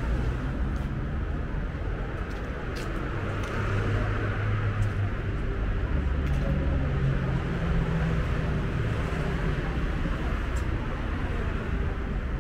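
City street traffic: a steady rumble of cars and motorbikes going by, with an engine passing close about four seconds in and another from about six to nine seconds.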